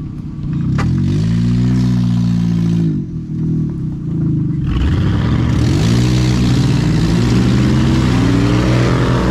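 A truck engine revving hard under acceleration: its pitch climbs and holds, drops off about three seconds in, then climbs again through the rest. From about five seconds in a loud steady rush of noise joins it.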